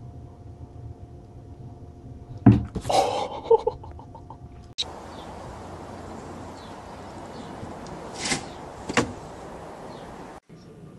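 A heavy thump about two and a half seconds in, followed by a short rattling clatter; later, two sharp knocks close together.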